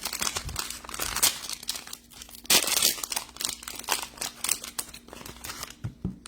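Crinkling and tearing of plastic wrapping as a pack of baseball cards is opened and handled, loudest about two and a half seconds in.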